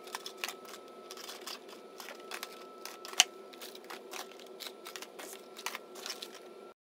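Cardboard snack boxes being handled and set down on a wooden floor: scattered light taps and rustles, with one sharper knock about three seconds in, over a faint steady whine. The sound cuts off abruptly near the end.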